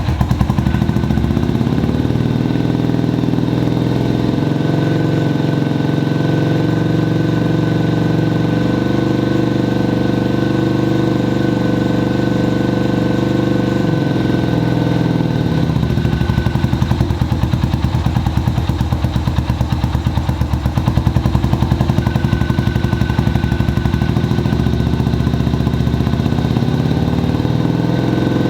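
Honda FTR223's air-cooled single-cylinder engine idling just after being started, freshly rebuilt at the top end. The idle settles lower about halfway through.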